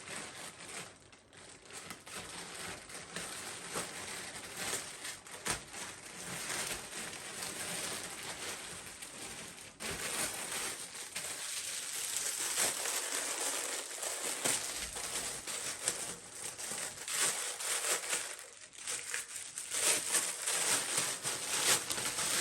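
Packaging crinkling and rustling in someone's hands as a parcel is opened and its contents unwrapped, with irregular sharper crackles throughout.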